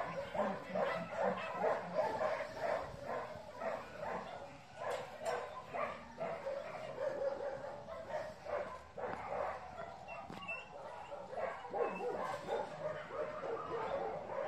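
A dog barking over and over, about three barks a second, keeping on with little break.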